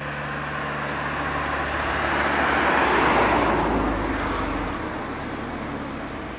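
A steady low engine hum runs throughout. Over it, the noise of a passing vehicle swells to a peak about three seconds in and then fades away.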